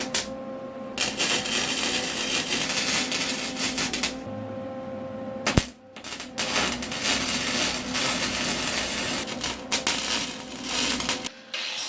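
Small electric welder's arc crackling as steel floor supports are welded, in two long runs with a steady hum beneath them and a sharp click in the pause between.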